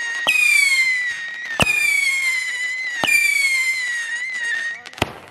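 Whistling fireworks going off in a regular sequence: three times a sharp pop launches a shot that gives a long high whistle, falling slightly in pitch over about a second. Two sharp cracks follow close together near the end.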